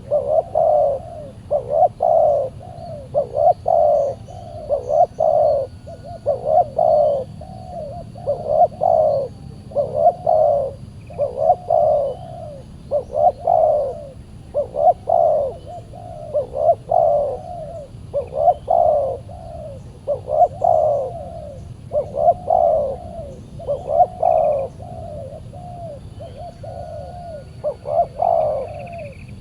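Spotted dove (tekukur) cooing over and over, one coo phrase about every two seconds.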